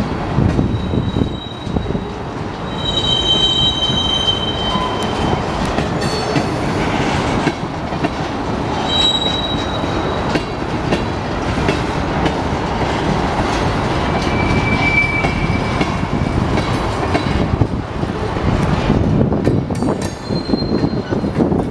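Freight cars of a slow-moving Union Pacific train rolling past: a steady rumble of wheels on the rails, with several brief high-pitched wheel squeals, the first soon after the start, others in the middle and near the end.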